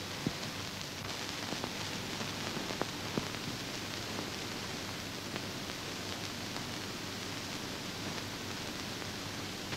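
Steady hiss of an old 1930 film soundtrack, with a few scattered faint clicks in the first few seconds.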